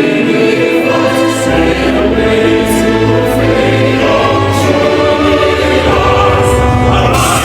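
A choir singing a national anthem with instrumental accompaniment, in long held chords over a steady bass.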